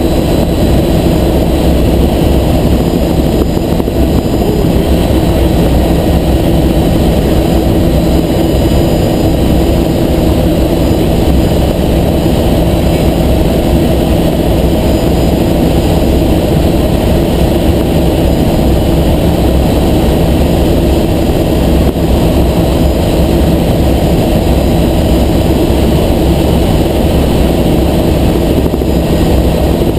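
Helicopter in flight: loud, steady rotor and engine drone with a constant low hum, unchanging throughout.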